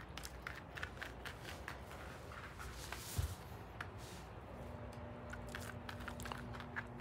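Scissors snipping through a dog's fur close to the microphone: a run of short, crunchy cuts, with a dull bump about three seconds in.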